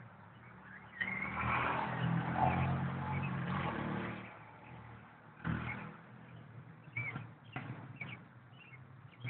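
A motor vehicle's engine passes by about a second in and fades out after about three seconds. Then come a few short clicks and several brief high chirps.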